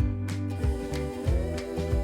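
Background music with a steady beat, bass and sustained instrumental notes.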